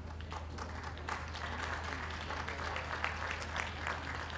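Ringside audience applauding, the clapping swelling about a second in and holding, over a low steady hum.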